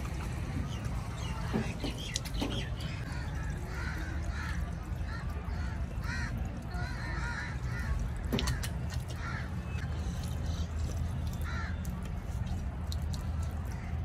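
Water running from a stainless-steel drinking-water cooler's tap as someone drinks from it, over a steady low hum. Birds call repeatedly in the background.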